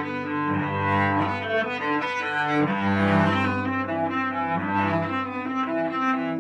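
Cello played with the bow: a low note held underneath while a line of higher notes moves above it, changing every half second or so.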